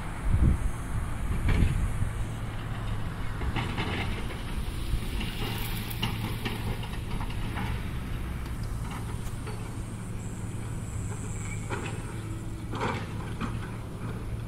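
A steady low engine rumble under outdoor hiss, with a couple of low thumps about a second in and a few short knocks near the end.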